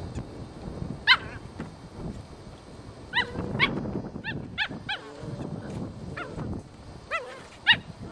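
Seven-week-old puppies yipping: short high-pitched barks, singly and in quick pairs, one about a second in, a cluster of several between three and five seconds in, and two more near the end.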